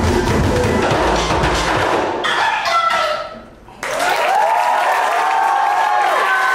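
Drumming on barrel drums over a recorded music track with deep bass, ending about two seconds in with a falling, fading sweep. About four seconds in the audience suddenly breaks into cheering, whoops and applause.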